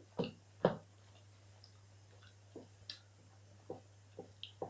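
A few short, soft clicks and taps at close range, the two loudest within the first second and fainter ones scattered after, over a faint steady hum.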